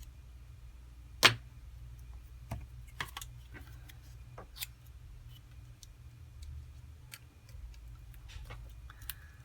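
Scattered sharp clicks and light taps of small hand tools working on a smartphone's frame while old adhesive is cleared off, one much louder click about a second in, over a steady low hum.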